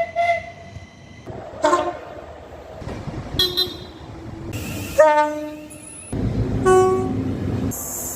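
A run of about five brief train horn toots from different British trains, joined by abrupt cuts between clips. The loudest blast comes about five seconds in.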